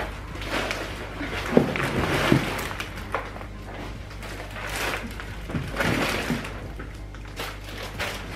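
Grocery bags, reusable totes and plastic bags, rustling and knocking as they are carried in and set down on a kitchen bench, in two spells of handling a few seconds apart.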